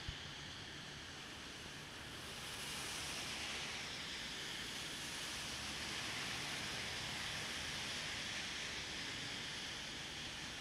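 Steady hiss of rain falling on a city street, with a single brief click at the very start.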